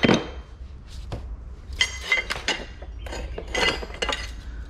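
Metal machine-foot brackets clinking and knocking against each other and the table as they are handled: several sharp metallic clinks with a short ring, in two clusters about two seconds and three and a half seconds in.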